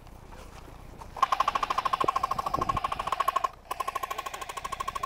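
Airsoft electric gun firing full-auto: a rapid, even clatter of shots over a steady motor-gearbox whine. It starts about a second in, pauses briefly near three and a half seconds, then fires again.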